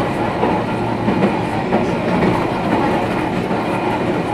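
Toyohashi Railway 3500-series tram running along its street track, heard from inside the passenger cabin: a steady running rumble of wheels on the rails and the car's drive.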